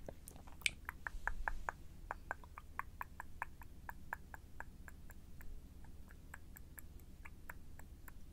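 ASMR mouth sounds: a quick run of small, wet lip and tongue clicks, about four or five a second. A brief low bump about a second in.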